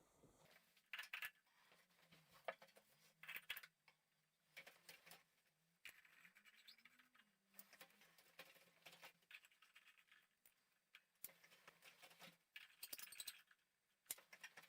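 Faint scattered clinks and light scrapes of glass and metal as glass shades are placed on a brass chandelier's arms and light bulbs are screwed into the sockets.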